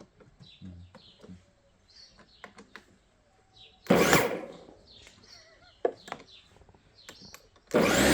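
Grunman corded electric lawn mower's motor switching on near the end and spinning up with a rising whine. Before it, faint bird chirps, small clicks and one brief loud noise about four seconds in.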